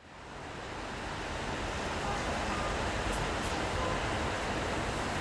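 City street ambience in the rain: a steady hiss of rain and passing traffic, fading in over the first second.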